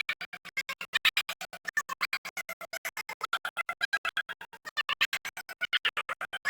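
Music broken up by rapid audio dropouts, cutting in and out about ten times a second in a steady stutter: the recording is corrupted after a power cut.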